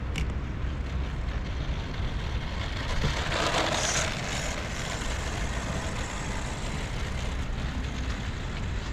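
Wind buffeting the microphone in a steady low rumble, with a louder rush of hiss lasting about a second, about three seconds in.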